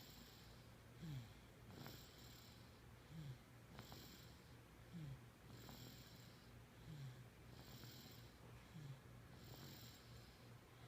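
Faint, regular snoring, about one breath every two seconds: a hissing breath alternating with a short snore that drops in pitch.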